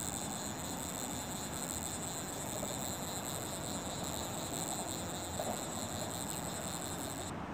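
Insects chirping steadily in a high-pitched, pulsing chorus over a low rush of background noise. The chirping stops abruptly near the end.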